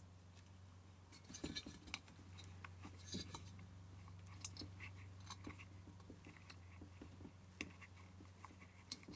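Faint handling noises as a rubber grommet is pushed and worked into the aluminium burner casing of a diesel heater: scattered small clicks and brief rubbing and scratching, over a steady low hum.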